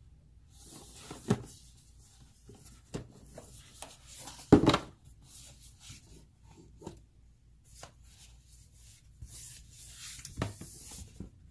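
A folded cardboard game board being handled: soft rustling and light taps, with one loud thump about halfway through.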